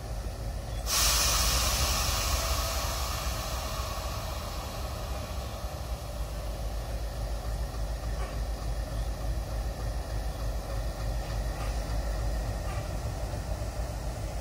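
An Indian Railways diesel locomotive's engine runs with a steady low rumble as it moves a brake van slowly. About a second in, a loud hiss of air brake release starts suddenly and dies away over the next few seconds. A few faint knocks come later on.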